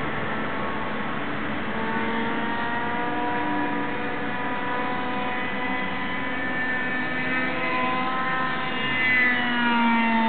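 Radio-controlled model airplane's engine and propeller running in flight, a steady high drone of several tones. About nine seconds in it grows louder and its pitch falls.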